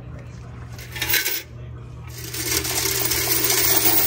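Coins clinking and rattling in a vending machine coin box as it is taken out and handled: a brief clatter about a second in, then steady jingling from about two seconds in.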